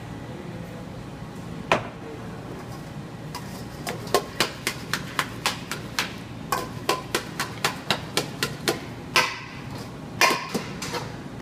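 Metal tongs knocking against a stainless steel mixing bowl as a salad is tossed. One knock comes early, then a quick run of sharp metallic clacks, about three or four a second, some of them ringing briefly.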